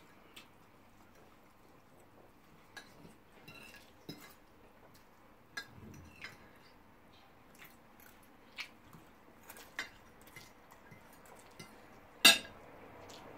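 A metal fork clinking against a plate during a meal: a scattering of light, separate clinks, with one much louder clink near the end.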